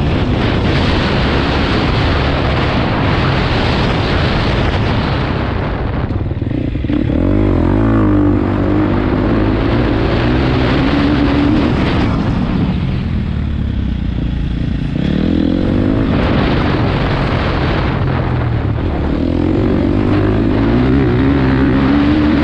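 Motocross dirt bike engine under throttle, revving up and dropping back several times as the rider shifts and rolls off, with a quieter spell off the throttle a little past halfway. Heavy wind rush on the helmet camera covers much of it.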